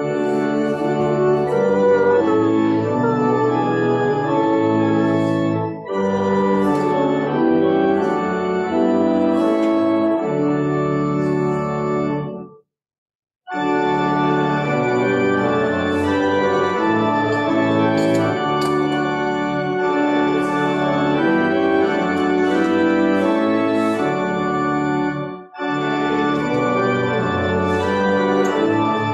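Church organ playing a hymn in held, full chords that change about every second, with a clean break of under a second about halfway through.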